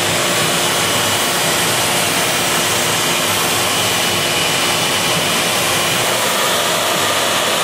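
ShopBot CNC router spindle, spinning a 1/4-inch upcut round-nose bit at 16,000 RPM, running together with the dust-collector suction at its brush shoe: a loud, steady rushing noise with a faint high whine, as the bit cuts into pink foam on the roughing pass.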